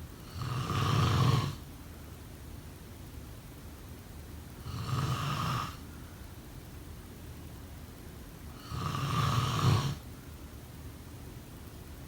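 Snoring: three snores about four seconds apart, each lasting about a second.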